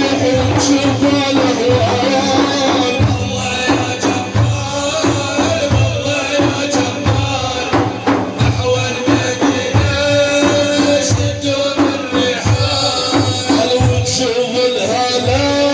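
Instrumental music interlude: a held, wavering melody line over a steady beat of hand percussion.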